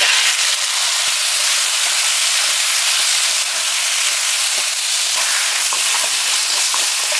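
Shell-on shrimp frying in hot oil in a wok: a steady sizzle, with light spatula scrapes as they are stir-fried.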